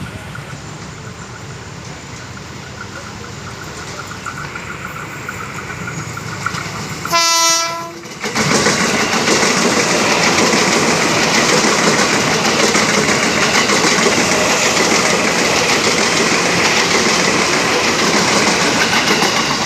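A train drawing nearer, its rumble slowly growing louder, then one short, loud blast of its horn about seven seconds in. Right after, the train passes close by with loud, steady rolling noise and wheel clatter.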